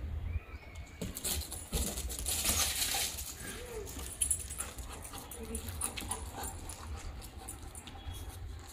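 Labrador dog panting and moving about, with wind rumbling on the microphone.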